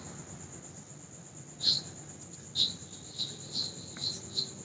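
Insects chirping in the background: short high chirps, irregularly spaced, starting about a third of the way in and coming more often toward the end, over a steady high-pitched ring.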